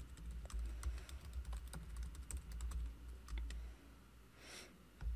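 Typing on a computer keyboard: a quick run of light key clicks as a terminal command is typed, thinning out to a few isolated clicks in the last second or so.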